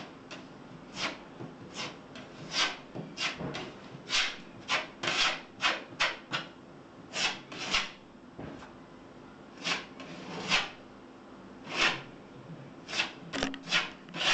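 A filler spreader scraping freshly mixed two-part ultra-fine body filler across plasterboard in short strokes, about one or two a second, with a brief pause around the middle.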